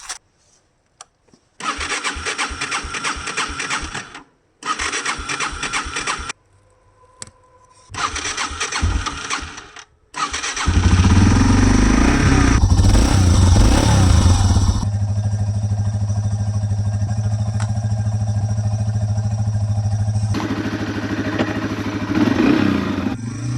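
Yamaha TW200's single-cylinder engine being electric-started: the starter cranks it in three bursts of a couple of seconds each, and about ten seconds in it catches, runs louder for a few seconds, then settles to a steady idle, rising a little again near the end.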